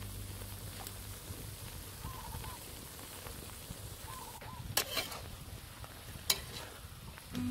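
A few sharp clinks of a metal spoon against a metal wok as chopped banana blossom salad is mixed, over a faint background hiss with a few short chirps.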